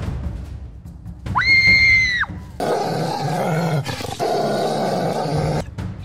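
A shrill cry about a second in, rising, held for about a second and dropping away, then a rough monster growl lasting about three seconds: a werewolf growling.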